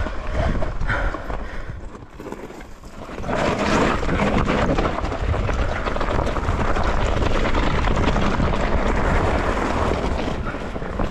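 Mountain bike riding over rough, rocky trail: a steady rush of tyre and wind noise full of rapid rattling knocks from the bike. It dips briefly about two seconds in and builds back up a second later.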